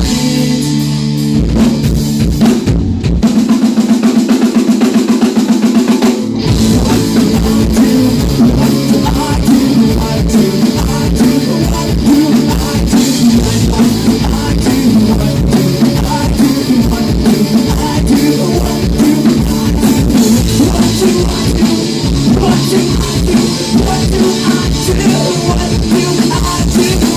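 Live rock band playing an instrumental passage on drum kit, bass and electric guitars. About three seconds in, the low end drops out for roughly three seconds, leaving a fast, evenly pulsed part, and then the full band comes back in.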